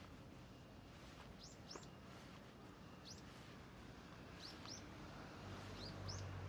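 A small bird calling a thin, high "pyuis, pyuis" call out of sight: quick upward-sweeping notes, mostly in pairs, repeated every second or so. A faint low hum creeps in near the end.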